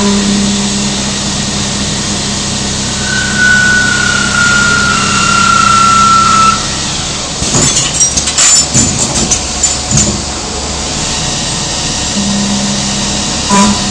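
CNC polygon lathe running, a steady machine hum and spindle noise with a high whistling tone from about three to six seconds in. A rapid run of metallic clattering knocks follows from about seven and a half to ten seconds in, before the steady running resumes.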